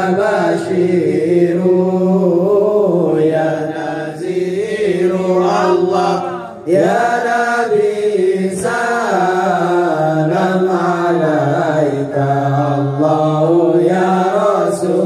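Men's voices chanting sholawat (serakalan) together, unaccompanied, in long drawn-out melismatic lines. There is a short break about six and a half seconds in, and the next line begins with a rising swoop.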